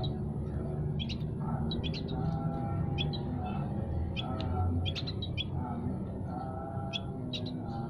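Small caged songbirds in an aviary chirping, with short, sharp high calls repeating about once or twice a second over a steady low rumble.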